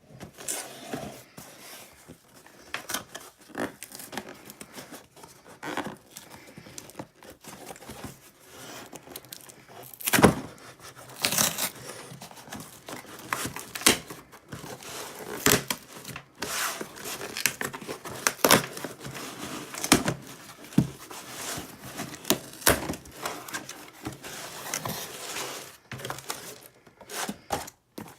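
A shipping package being torn open and handled: tearing and crinkling with irregular clicks and knocks, the loudest about ten seconds in.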